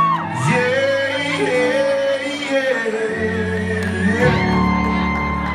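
Live country band with keyboard and guitar playing sustained chords while a male singer holds long, gliding notes into the microphone, echoing in a large hall.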